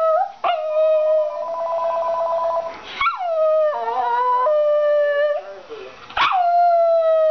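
Cairn terrier howling: three long howls, each starting high and sliding down into a steady held note, set off by a talking phone's voice.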